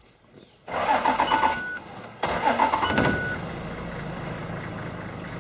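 Safari vehicle's engine being cranked twice with the starter, the second attempt catching, then settling into a steady idle.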